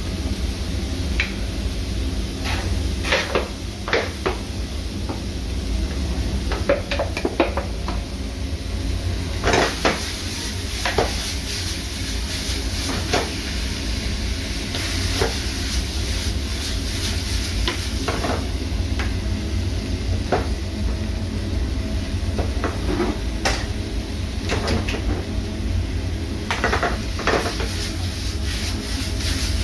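Metal cooking utensils knocking and scraping against a pan, in many separate clinks, over a steady low hum.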